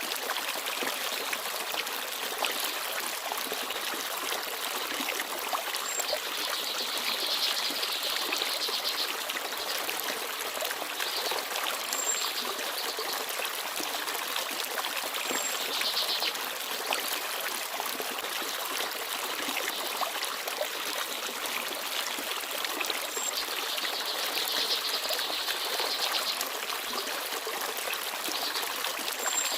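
Small forest stream babbling and trickling steadily over stones, with a few brief, very high peeps scattered through it.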